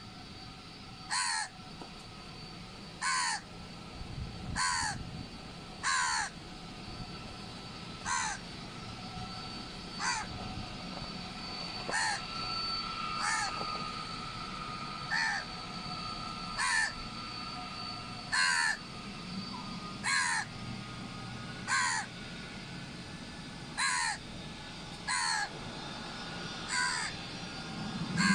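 A bird calling over and over, short calls that each fall in pitch, about one every one and a half to two seconds. Beneath it runs a faint steady whine and hum.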